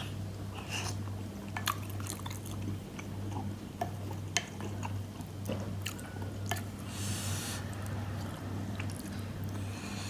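Close-up eating sounds of bakso meatball soup with rice vermicelli: wet chewing and a short slurp about seven seconds in, with scattered sharp clicks, over a steady low hum.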